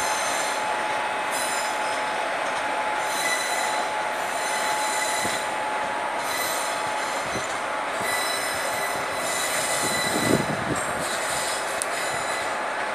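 Passenger train rolling slowly out of the station, heard from on board: a steady running rumble with the wheels squealing in repeated high-pitched spells, and a brief thump about ten seconds in.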